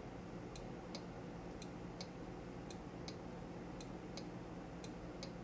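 Snap Circuits S3 relay clicking back and forth as it alternately switches a red and a green LED, a faint regular ticking of about two clicks a second, paired unevenly, like an old-fashioned car turn signal.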